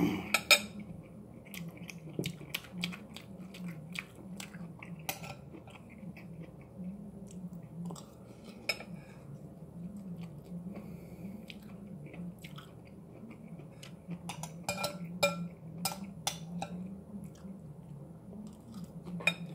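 A person chewing a mouthful of cooked mixed vegetables (green beans, corn and carrots), with scattered clicks of a fork against the plate. The clicks bunch up twice, about two-thirds of the way in and again near the end as another forkful is taken, over a low hum.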